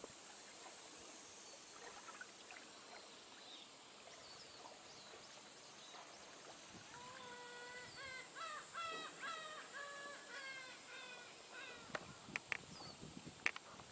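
Birds calling outdoors: a run of short, harsh, crow-like calls in the middle, over fainter small-bird chirps, with a few sharp clicks near the end.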